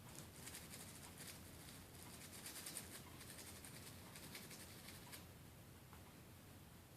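Faint, quick scrubbing strokes on an iPod circuit board as it is cleaned with alcohol cleaner, with a soft click about five seconds in.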